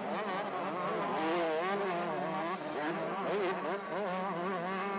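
Several 125cc two-stroke motocross bikes racing, their engines revving up and down in overlapping rising and falling pitches.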